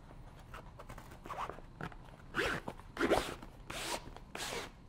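A stiff batten being pushed down through the fabric sleeve of a canvas bag door, rasping against the canvas. There are faint scratches at first, then about four short rasping strokes in the second half.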